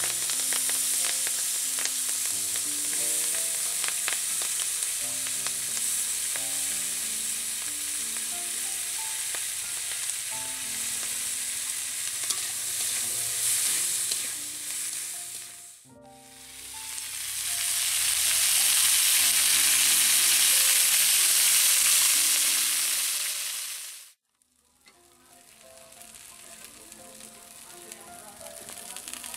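Chopped spring onion stalks sizzling in hot oil in a metal kadai while being stirred with a spatula. The loud sizzle dips about halfway, swells again, then cuts off suddenly about three quarters of the way in, leaving a fainter sizzle near the end.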